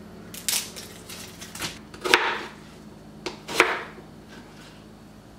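Kitchen knife cutting an onion in half on a plastic cutting board: several sharp knocks of the blade meeting the board, with fainter rustles and ticks of onion skin between them.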